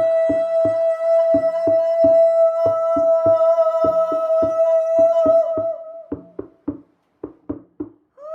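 Drumbeat of about three strokes a second under a steady high sustained tone with many overtones. The tone stops about five and a half seconds in, leaving the drum beating alone until a new tone enters at the very end.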